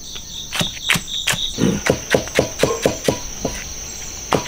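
Kitchen knife slicing chili peppers on a cutting board, a few spaced knocks and then a quick run of about four a second, pausing briefly before resuming near the end. Crickets trill steadily in the background.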